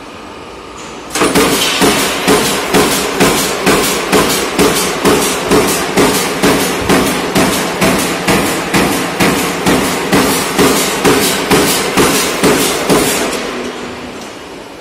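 Punching press on a rolling shutter door roll forming machine stamping rows of holes into steel strip. It makes a steady run of sharp metallic strokes, about three a second, over a low machine hum. The strokes start about a second in and fade out near the end.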